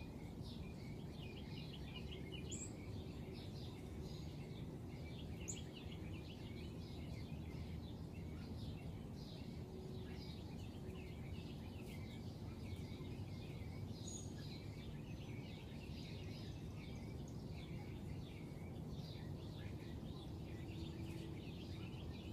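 Small birds chirping steadily in the background over a constant low ambient rumble, with a few sharper, higher chirps standing out about two and a half, five and a half and fourteen seconds in.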